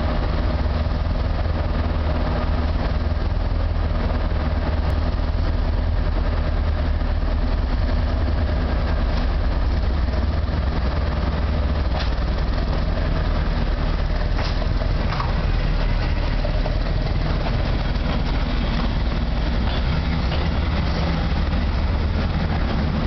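Northern Ireland Railways Class 80 'Thumper' diesel-electric multiple unit, its English Electric diesel engine running with a steady low drone as the train pulls out and draws past. A few sharp clicks come through about halfway.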